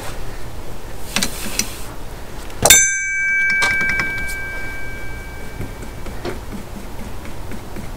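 A single sharp metal clang about a third of the way in, ringing on with two clear tones for about three seconds, amid light clicks and handling of steel tools and the seal press on the hub.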